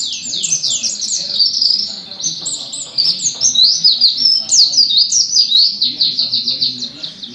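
A pleci (white-eye) singing a fast, continuous run of high, quick falling chirps and sweeping notes, its song filled with learned lovebird-style calls.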